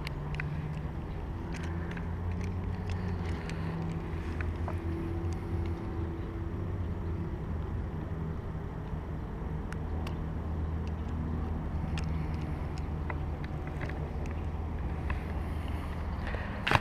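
A low, steady engine hum with a few faint clicks over it.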